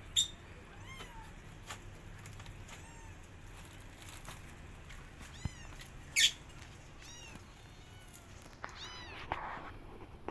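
Kittens mewing over and over, short high-pitched calls about once a second, with two sharper, louder cries, one just after the start and one about six seconds in.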